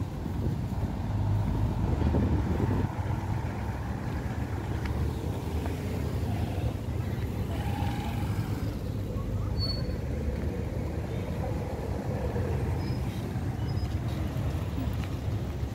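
Street traffic: a steady low rumble of passing cars and motorized tricycles running by.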